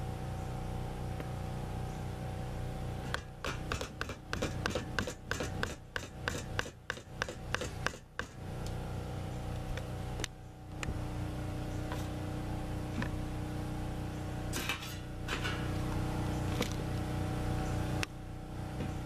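Hands working a plastic mixing bowl and utensils while mixing dough: a run of quick scrapes and knocks lasting about five seconds, then a few scattered scrapes later. A steady low mechanical hum runs underneath.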